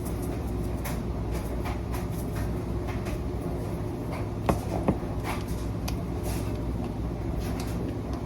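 Salt and pepper being shaken over chicken: scattered light clicks and rattles over a steady low hum, with two sharp clicks about halfway through.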